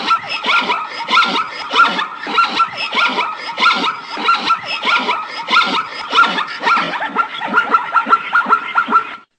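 Zebra calling: a long run of quick, repeated barking yelps, several a second, that cuts off abruptly near the end.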